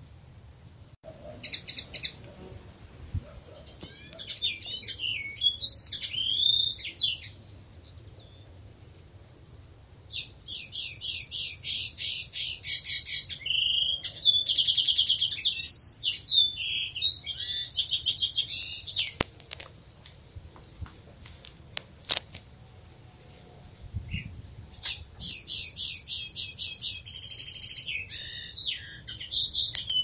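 European robin singing: high, quick phrases of repeated notes and trills, broken by pauses of a few seconds.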